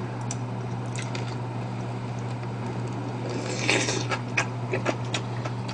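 Close-miked eating: chewing a mouthful of rice with kimchi, then a metal spoon scraping and clicking against a ceramic plate, over a steady low hum.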